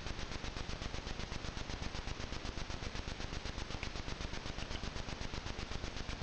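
Trail camera's own electronic noise: a steady hiss with a rapid, even pulse. No separate sound from the deer stands out above it.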